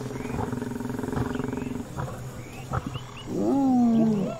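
Lions and spotted hyenas fighting: a steady rasping growl for about two seconds, a couple of sharp knocks, then a loud wavering call that rises and falls near the end.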